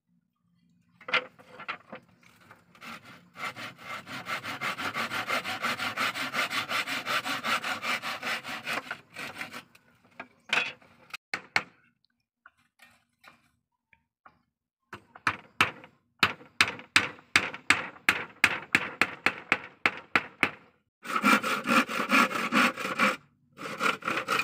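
Hand saw cutting wooden slats in quick, even back-and-forth strokes. It comes in three runs, the first about nine seconds long, then a pause of a few seconds before the next two.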